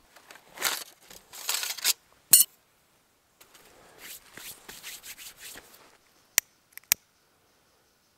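Rustling and scraping of kindling being handled at a metal twig stove, with a loud sharp click a couple of seconds in. Near the end come two sharp clicks of a lighter being struck to light fatwood.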